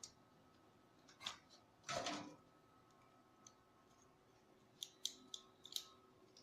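Faint clicks and knocks of hands handling computer hardware while fitting a graphics card into a PC: a single click, a fuller knock about two seconds in, then a quick run of small sharp clicks near the end.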